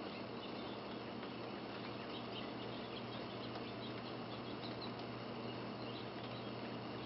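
Falling snow: a steady hiss scattered with faint, irregular tiny ticks of flakes landing, over a low steady hum.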